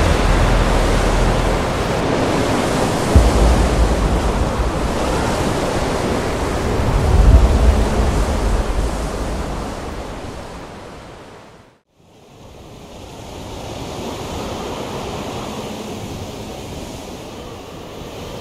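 Loud, steady rushing wind-like noise over FPV drone flight footage, with a single low thump about three seconds in and a swell around seven seconds. It fades out to silence about twelve seconds in, then comes back quieter.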